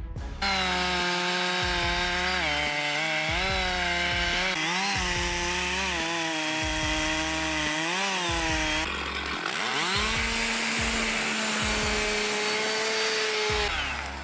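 Chainsaw running at high revs, its pitch dipping and recovering several times as it bogs down in the cut. Near nine seconds the sound breaks off and a chainsaw revs up and holds a steady high pitch.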